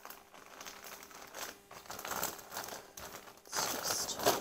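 Plastic crinkling and rustling as skeins of yarn stored in plastic bags are handled and moved around in a cabinet, with a louder burst of crinkling near the end.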